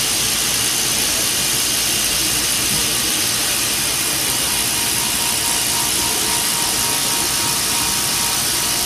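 CNC milling machine spindle running with an end mill cutting linen phenolic: a steady, hiss-like machining noise with no breaks, and a faint thin whine joining in about halfway through.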